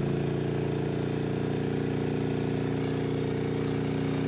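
MAXPEEDINGRODS MXR5500 inverter generator's engine running at a steady hum while carrying about 4000 watts of load.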